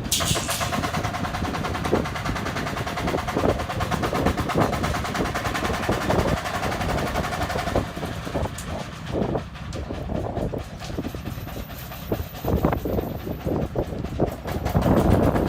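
Self-loading concrete mixer's engine running hard with a fast, even chugging, mixed with metallic rattling and knocks from the machine working; the sound changes about eight seconds in.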